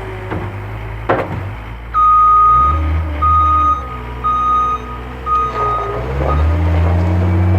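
Backup alarm on a John Deere 326D skid steer beeping four times, about once a second, over its diesel engine running. A couple of knocks sound in the first second or so, and the engine revs up near the end.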